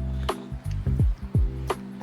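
Background music: held low synth notes with several deep drum hits that drop quickly in pitch.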